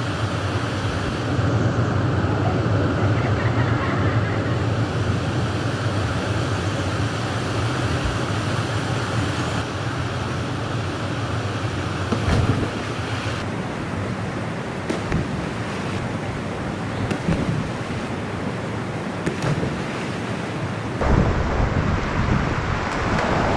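Steady rushing of a small waterfall and river cascade, with a few short splashes. Heavy wind noise buffets the microphone near the end.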